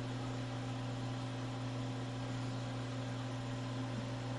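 Steady low electrical hum with one higher overtone over a faint even hiss, unchanging throughout.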